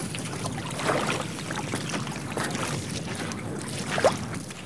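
Footsteps squelching and knocking over a wet, stony mudflat at low tide, with wind on the microphone. A short rising-and-falling cry comes about four seconds in.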